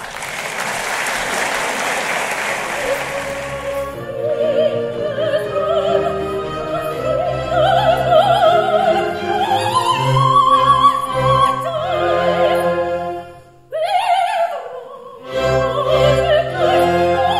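Audience applauding for about four seconds, then opera singers with a chamber orchestra, the voices singing with wide vibrato and climbing in pitch. The music drops away briefly near the end, leaving one voice sliding, then resumes.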